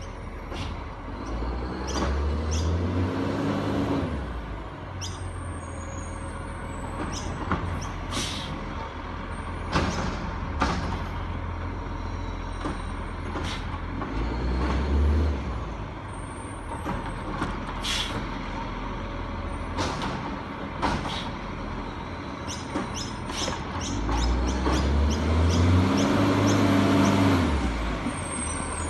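Diesel garbage truck working a street of wheelie bins: its engine runs low and revs up and falls back three times, the way a side-loader's engine revs to drive the bin-lifting arm, with sharp clanks in between.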